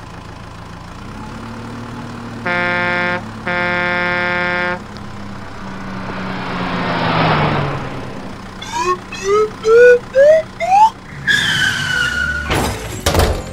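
A string of cartoon vehicle sound effects: a low steady hum, two long horn honks, a swelling whoosh, a run of short rising chirps that climb higher each time, a falling tone, and a few sharp hits near the end.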